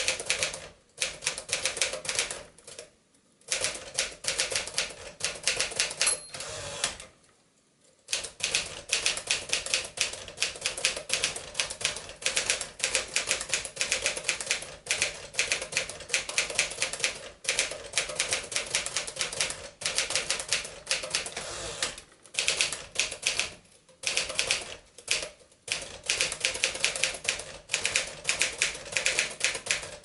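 1951 Smith-Corona 5S Silent portable typewriter being typed on: a rapid clatter of keystrokes, with a few short breaks in the typing.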